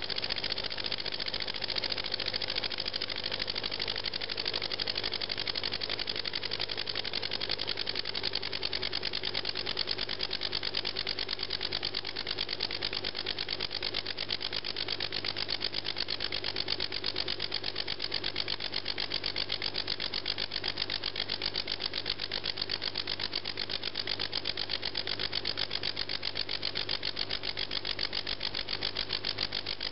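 Small brass valveless rocking (oscillating-cylinder) engine running on compressed air at about 5 to 10 PSI, making a fast, steady ticking of exhaust puffs as it turns.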